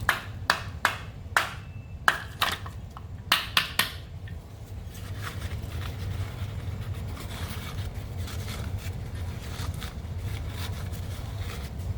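Parts of a disassembled car cooling fan motor being handled: about eight sharp clicks and knocks in the first four seconds, then fainter scattered ticks, over a steady low hum.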